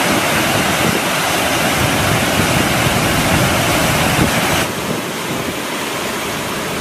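Steady rush of water from a waterfall in monsoon flood, brown water pouring hard over rock ledges. The sound drops a little in level and brightness about four and a half seconds in.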